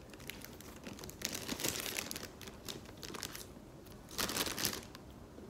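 Clear cellophane candy wrapper crinkling as it is handled and pulled open around a chocolate figure, in two main bursts: about a second in and again about four seconds in.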